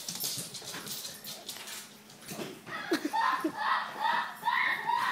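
A run of loud, shrill scream-like cries, about two a second, beginning a little under three seconds in; the source could not be identified even by the people recording. Before them, scuffling and sharp clicks as the dog moves across the wooden floor.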